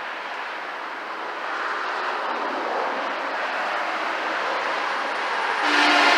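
Highway traffic noise from semi trucks passing, growing louder about a second and a half in. Near the end it swells sharply with a steady low tone as a truck passes close.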